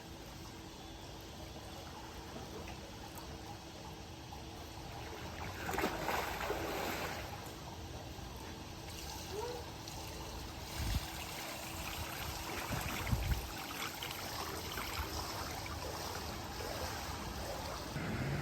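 Water running and trickling, with a few soft low thumps about eleven and thirteen seconds in.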